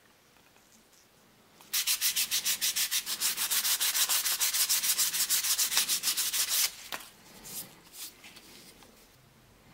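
Sandpaper rubbed by hand back and forth along a wooden tool handle, sanding the wood filler flush. The strokes are quick and even, about seven a second, for some five seconds, then stop about two-thirds of the way in and give way to a few lighter scrapes.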